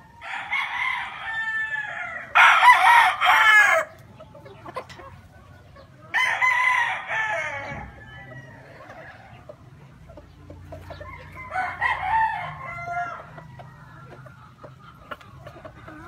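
Roosters crowing four times, each crow lasting about a second and a half to two seconds. The loudest comes about two and a half seconds in and the last, weaker one near the end.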